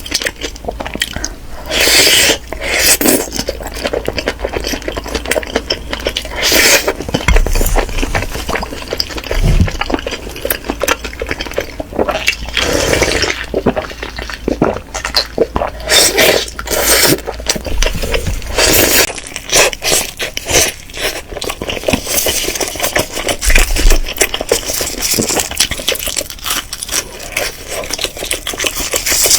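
Kitchen handling sounds: irregular scraping and clinking of utensils against dishes, with short noisy bursts.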